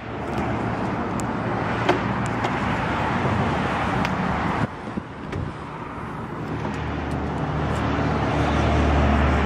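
Road traffic noise, with a vehicle's low rumble building over the last few seconds. A short click about four and a half seconds in.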